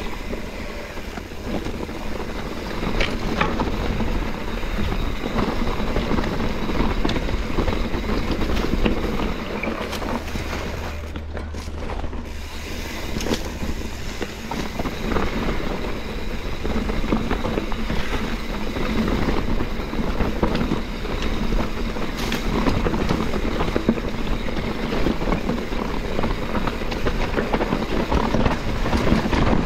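Mountain bike rattling and clattering over a rough, rocky dirt trail, with tyres crunching on loose gravel and many small knocks from the bike, over a steady low rumble of wind on the microphone.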